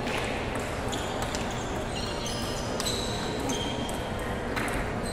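Table tennis ball clicking off paddles and the table, a handful of sharp separate clicks over the steady background noise of a large hall.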